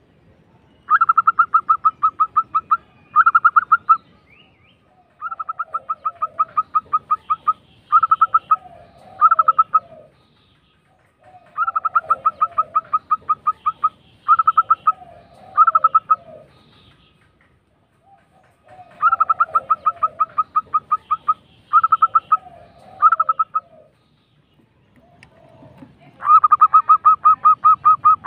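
Zebra dove (perkutut) singing: repeated bouts of fast rolling, rattling coos. Each bout is a long trill followed by two or three shorter ones, with softer, lower coos mixed in. There are four bouts, and a fifth starts near the end.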